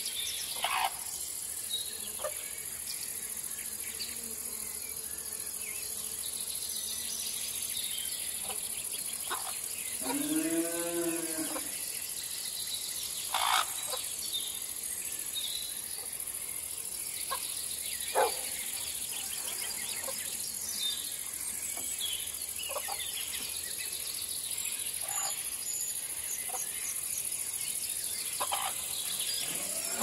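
Steady chorus of crickets and other insects, with scattered short bird chirps. About ten seconds in, a single livestock call rises and falls for about a second and a half.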